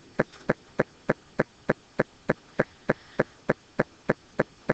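Steady, even clicking, about three short clicks a second.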